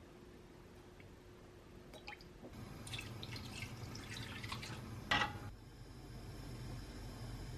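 Water running from a tap and dripping into a sink, with a few light knocks and one sharper clack about five seconds in.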